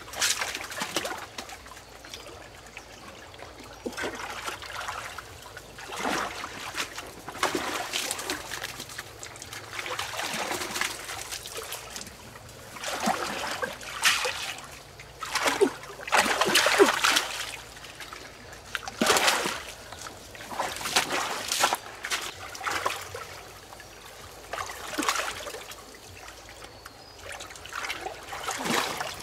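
Shallow water splashing and trickling in irregular bursts, a few of them louder near the middle.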